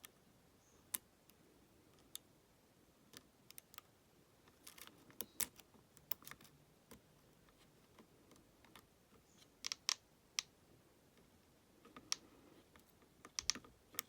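Small, sharp metallic clicks and scrapes of a lock pick and tension wrench working the pins inside a Master Lock 570 padlock, coming irregularly with small clusters about five, ten and thirteen seconds in.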